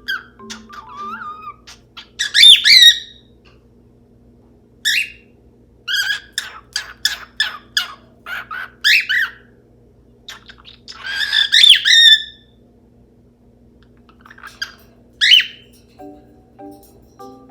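Cockatiel calling: a run of sharp chirps and squawks with pauses between, the loudest bursts about two and a half seconds in and again around eleven to twelve seconds in. Quiet background music sits underneath.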